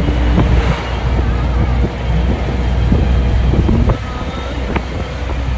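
A road vehicle running along, a steady low rumble with wind buffeting the microphone and scattered short knocks and rattles.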